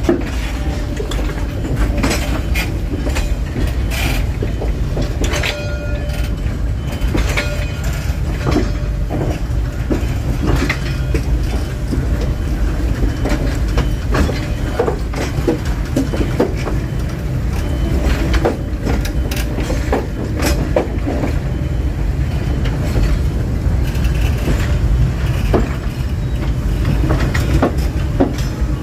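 A train of passenger coaches behind a D13E diesel locomotive rolling slowly: a steady low rumble broken by irregular clacks and knocks of the wheels over rail joints and points, with a few brief faint squeals.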